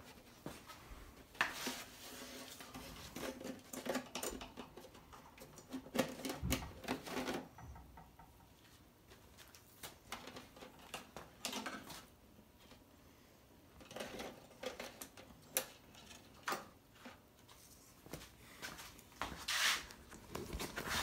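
Scattered light clicks, taps and rustles of parts being handled, coming in clusters with quiet gaps between.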